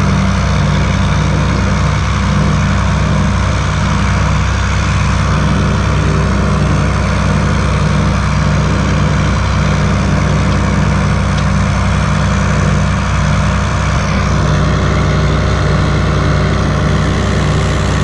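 Open-station John Deere tractor's engine running at a steady speed while driving.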